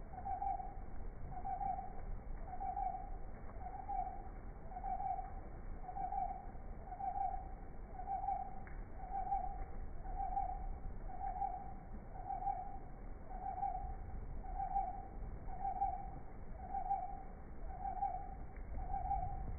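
A steady series of short, hoot-like toots on one mid pitch, evenly repeated about once a second, over a low rumble.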